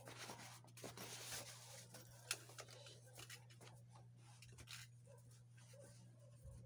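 Faint rustling and scraping of a nylon laptop bag as a laptop is slid out of it, with a sharp knock a little over two seconds in. Quieter handling follows.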